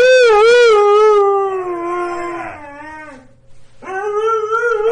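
A dog howling: one long wavering howl that slides down in pitch and fades about three seconds in, then, after a short pause, a second howl begins.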